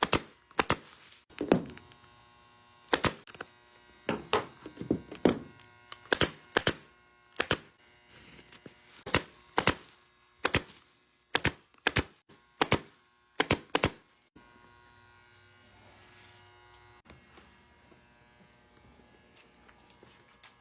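Upholstery staple gun firing about twenty sharp shots, often two in quick succession, as a vinyl seat cover is stapled down. The shots stop about fourteen seconds in, leaving a faint steady hum.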